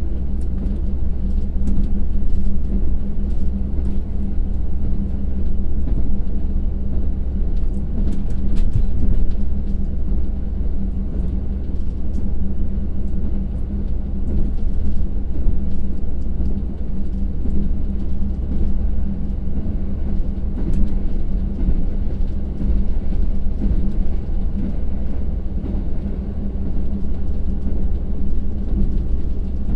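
Cabin running noise of a KiHa 182 diesel railcar coasting at about 85 km/h: a steady low rumble of wheels on rail with a steady hum, its DML30HSJ twelve-cylinder diesel idling rather than under power. A few brief clicks come around a third of the way in and again about two-thirds in.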